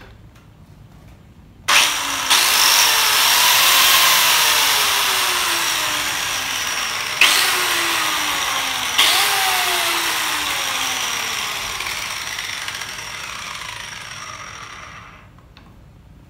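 Biscuit jointer's electric motor switched on and running at full speed for about thirteen seconds, then switched off. Two sharp clicks partway through come as the spring-loaded faceplate is pushed back to bare the spinning blade.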